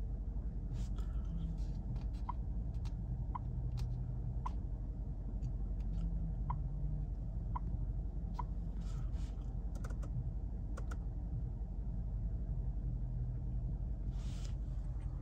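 Light clicks of switches and buttons in a car's cabin, with a soft tick about once a second over a steady low hum.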